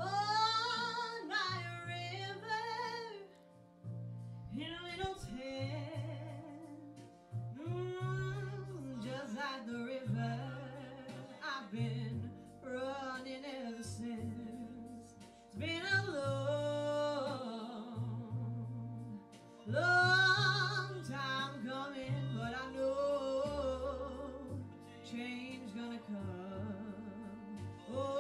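A young woman singing solo into a microphone, in phrases of a few seconds with long held, wavering notes, over a steady sustained instrumental accompaniment.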